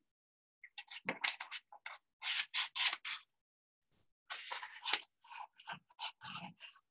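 Fine 220-grit sandpaper rubbed by hand over a bare wooden tray in a quick series of short strokes, in two runs with a pause a little before halfway.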